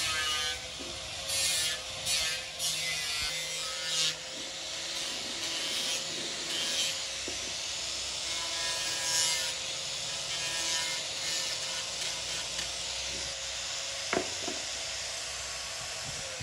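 Handheld angle grinder with an abrasive disc running steadily as it grinds the rough edges of a fibreglass helmet shell: a steady motor whine under a rasping hiss that swells and eases as the disc is worked along the edge, with a couple of sharp clicks near the end.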